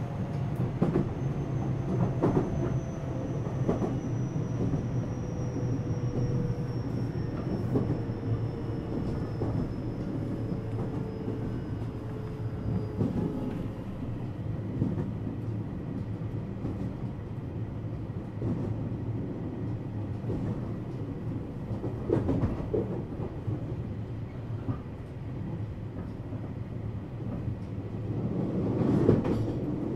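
Running sound of a JR West 227 series electric multiple unit heard inside motor car KuMoHa 227-68: a steady rumble of wheels on rail with scattered clicks over the rail joints. A faint whine falls slowly in pitch over the first dozen seconds, and there is louder clatter about 22 seconds in and again near the end.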